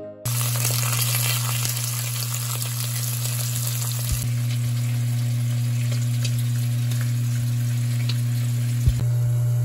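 Slices of pork belly sizzling and crackling as they fry in a nonstick pan, over a steady low hum.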